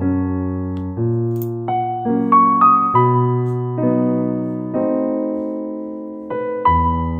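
Background piano music: single notes and chords struck and left to ring out, a new one about every second.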